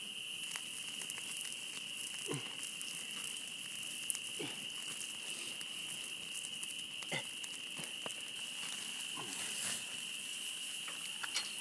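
Spring peepers calling in a dense chorus, a steady high-pitched peeping, over the crackle of a wood campfire and steaks sizzling on the grill grate. A short falling sound repeats every two seconds or so.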